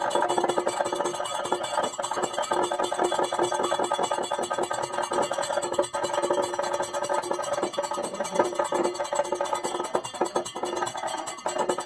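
Kathakali accompaniment: rapid, dense drumming over steady metallic ringing.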